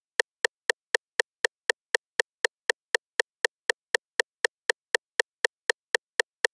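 A cowbell struck over and over at an even pace, about four hits a second. Each hit is short and ringing with two clear pitches, one low and one higher, and there is dead silence between hits.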